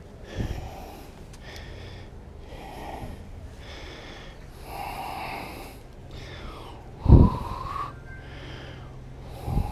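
A man breathing heavily, one breath about every two seconds. About seven seconds in there is a loud thump with a short rising tone, and another thump near the end.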